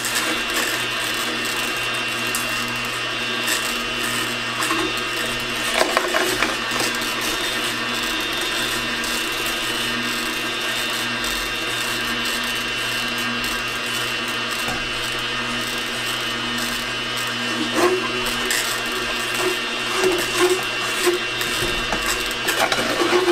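Kuvings commercial masticating slow juicer running steadily, its motor giving a constant hum while the slowly turning auger crushes carrots, kale and apple. Brief crackles and snaps from the produce come about six seconds in and again in the last few seconds.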